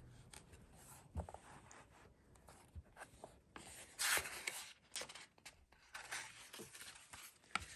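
Pages of a hardcover picture book being turned by hand: soft paper rustling and rubbing with small clicks, the loudest swish of a page about four seconds in.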